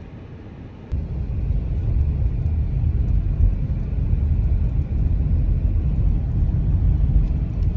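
Steady low rumble of a moving vehicle, with road and wind noise, that starts abruptly and loudly about a second in.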